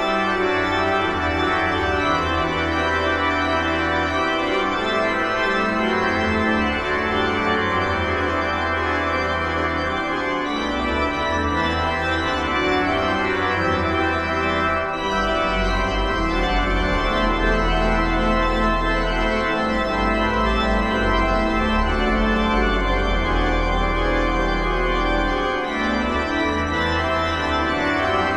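Organ playing slow, sustained chords over deep held bass notes that change every few seconds, a passage from a requiem for trumpet and organ.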